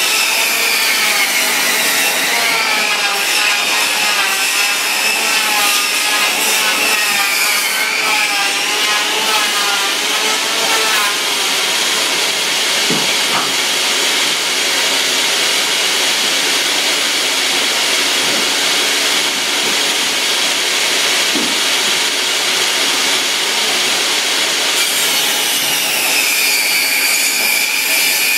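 Portable jobsite table saw running and ripping long reclaimed wooden floorboards. Its high whine dips in pitch several times as the blade bogs into the cut, over a steady rasp of blade on wood.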